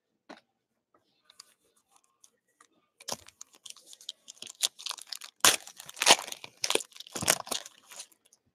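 A trading-card pack's wrapper being torn open and crinkled by hand. A quick run of crackling tears starts about three seconds in and is loudest shortly before the cards come out.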